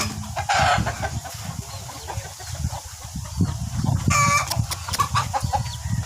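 Chickens clucking and calling, with a short, loud call about four seconds in, over a low rumble on the microphone.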